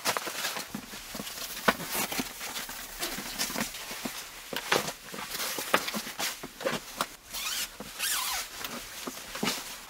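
A foil-faced foam sleeping mat being unrolled and laid out on a wooden bunk: irregular rustling and crinkling with scattered light knocks.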